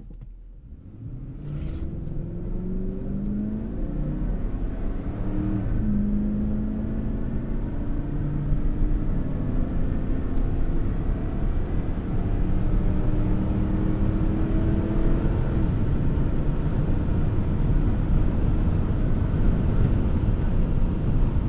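Ford 5.4-litre three-valve Triton V8 pulling under full throttle in a 2007 F-150, its pitch climbing steadily. The four-speed automatic upshifts about 6 seconds in and again about 15 seconds in, the pitch dropping at each shift and then climbing again on the long gearing.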